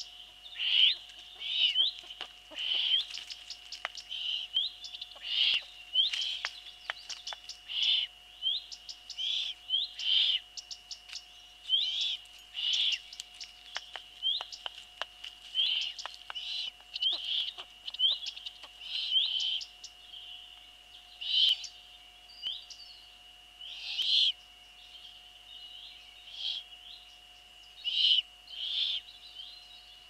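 Eurasian eagle-owl chick begging at the nest: short, harsh calls repeated about once a second while the adult feeds it. A steady faint tone runs underneath.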